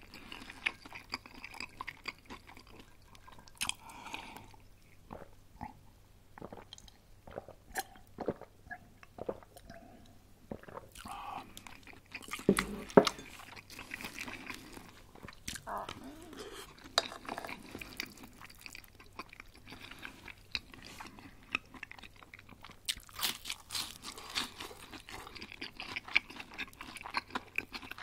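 Close-miked eating: crunching bites into crispy breaded chicken schnitzel and chewing, with many sharp crackles and one loud bite about halfway through.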